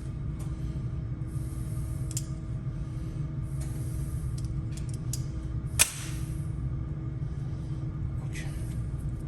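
Vinyl wrap film being worked and trimmed with a knife on a car door handle: three short stretches of scratchy rubbing and one sharp click about six seconds in, over a steady low hum.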